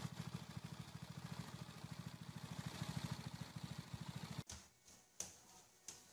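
Riding lawn mower's small engine idling with a steady low pulse, stopping abruptly about four and a half seconds in; a few faint knocks follow.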